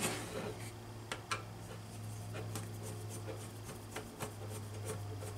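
Scattered light clicks and scrapes of a screwdriver bit being set into and working a screw on a power supply's sheet-metal case, with the unit shifted by hand on a wooden bench, over a steady low hum.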